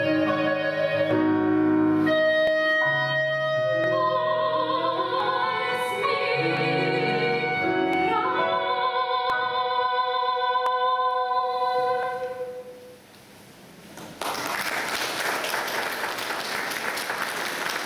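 A soprano singing a classical song with piano and clarinet accompaniment, ending on a long held note with vibrato that fades about twelve seconds in. After a short pause, the audience starts applauding.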